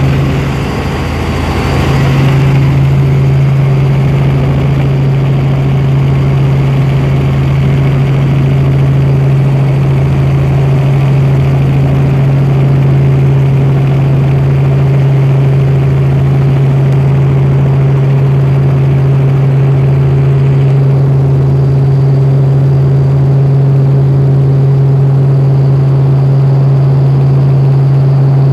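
Helicopter in flight heard from inside the cabin: a loud, steady drone of engine and rotor, with a low throb pulsing underneath.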